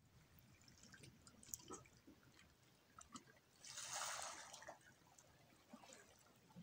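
Faint sea water lapping and trickling among shoreline rocks, with small drips and one louder wash of water about halfway through.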